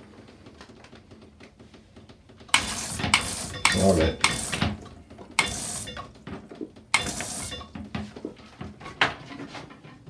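Handheld mini bidet sprayer, fed from the faucet, spraying water in several short hissing bursts, each under half a second.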